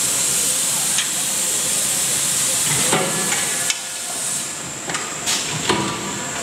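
Loud steady high hiss at a forging press that cuts off abruptly a little past halfway, with sharp metal clanks from tongs and press handling a hot billet about a second in, around three seconds, and a few more near the end.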